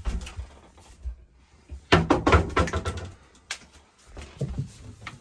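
Someone rummaging at a bathroom vanity: a quick run of knocks and clatters about two seconds in as things on and in the vanity are moved, then a few single knocks.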